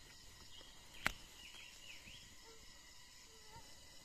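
Jungle ambience: a steady high drone of forest insects with a few short bird chirps, and a single sharp snap about a second in as a hand picks at rotten wood to pull out a wood-boring grub.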